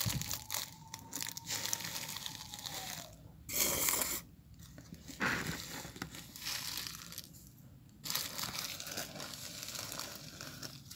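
Clear plastic bag of sugar crinkling and rustling as a steel spoon digs into it and scoops the sugar out, with louder crackles about three and a half seconds in and again about five seconds in.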